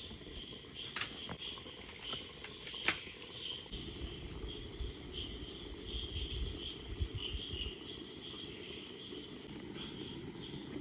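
Crickets chirping steadily in a continuous pulsing trill. Two sharp clicks come about a second and three seconds in, and a low rumble rises and fades in the middle.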